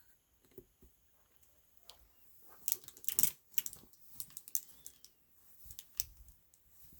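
Irregular clicks and light knocks, a few quick ones together about three seconds in and scattered ones after.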